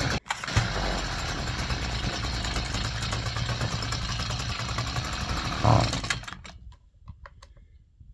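Stihl strimmer engine running steadily while its carburettor mixture screw is turned, then dying away about six seconds in, after a short louder blip; the strimmer has a bogging fault and is being tuned. A few faint clicks follow.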